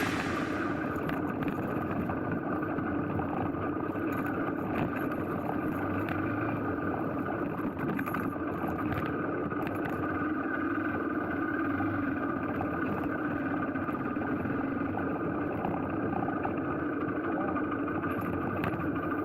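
Hero Xpulse 200's single-cylinder four-stroke engine running at a steady speed, with no revving.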